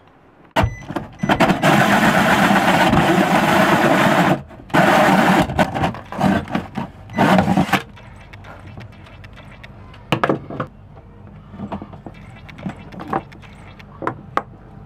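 Cordless drill running a hole saw through a fiberglass boat panel: a loud grinding cut that goes in several bursts and stops about eight seconds in. After that come light clicks and knocks of handling.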